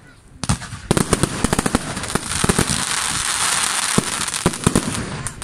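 Aerial firework shells bursting: a bang, then a fast run of pops from about a second in that builds into a dense crackle from crackling stars, with a couple of sharper bangs near the end.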